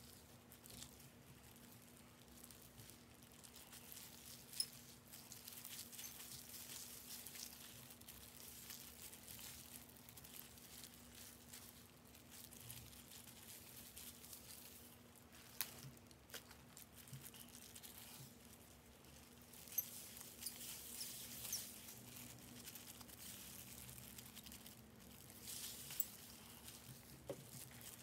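Faint rustling and crinkling of gloved hands working semi-permanent hair dye through hair, coming in spells, with a few light clicks.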